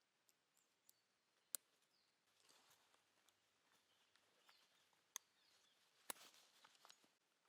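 Near silence with faint rustling and a few sharp, isolated clicks, the loudest about a second and a half in and two more late on.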